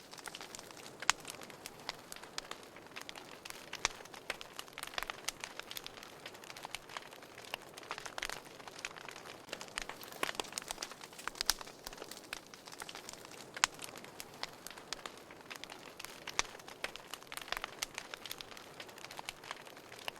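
Wood fire crackling in a fireplace: frequent irregular sharp pops and snaps over a faint steady hiss.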